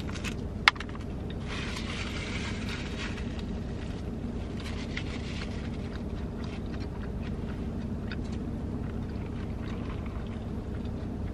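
Steady low hum inside a parked car's cabin, like an idling engine and ventilation. A crisp crunch of a bite into a fried chicken sandwich comes a moment in, with quieter chewing noises after.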